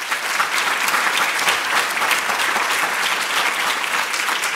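Audience applauding steadily, many hands clapping at once to welcome a speaker.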